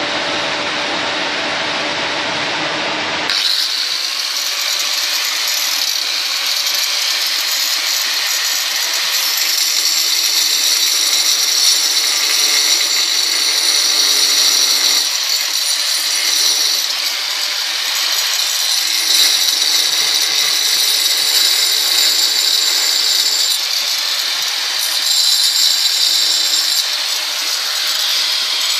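Angle grinder with a 125 mm diamond blade cutting a notch into a granite slab: a steady high-pitched whine with a grinding hiss, swelling and easing as the blade bites into the stone. For about the first three seconds a different, lower steady noise is heard, which cuts off abruptly.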